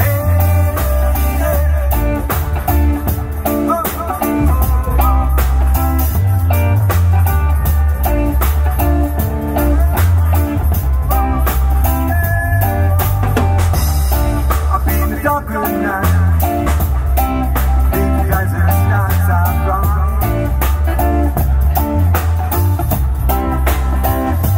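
Live band playing a blues-rock number: electric guitar and bass guitar over a drum kit, with a steady beat.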